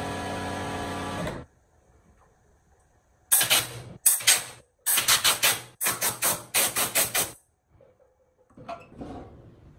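Compressed air from a handheld air blow gun, fired in about a dozen short, loud spurts to blow dust off a part. Before that a steady machine hum cuts off suddenly, and faint handling knocks follow near the end.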